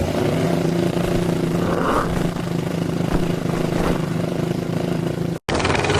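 Snowmobile engine running at a steady pitch, broken by a brief dropout near the end.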